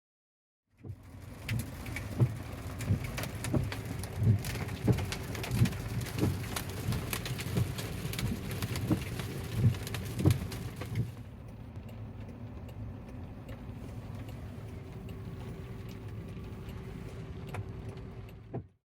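Heavy rain pattering on a car's roof and windshield, heard from inside the cabin, with many sharp irregular drop hits over a steady low hum. About eleven seconds in, the sharp hits fall away and it becomes a softer, duller rain hiss.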